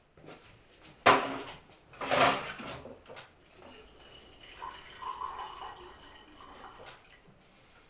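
Water from a kitchen tap splashing into a sink: two loud gushes about one and two seconds in, then a quieter, steady flow.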